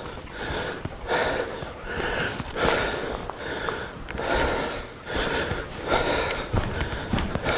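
A man breathing heavily and rhythmically close to the microphone, about one breath every second or less, as he walks. Near the end come a few footsteps on the slate floor.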